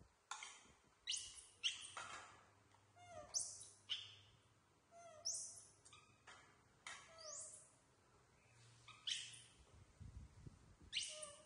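Baby macaques squeaking: short, high-pitched calls repeated roughly once a second, each falling steeply in pitch.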